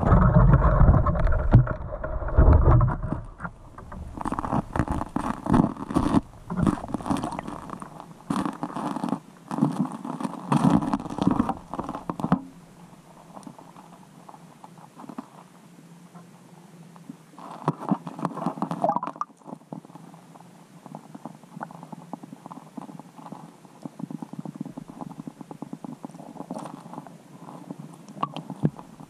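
Muffled rumbling and irregular knocking and scraping picked up by a camera in its waterproof housing under the ice. A heavy low rumble opens, then a run of clattering knocks, then a quieter stretch with another short burst of knocks and faint ticking.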